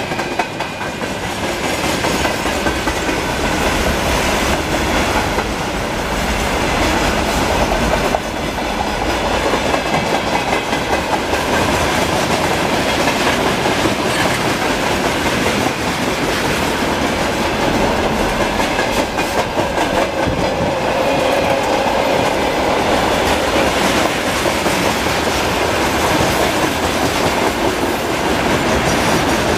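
Freight train of tank cars rolling past close by: a steady rumble of wheels on the track, with repeated clicks as the wheels cross rail joints.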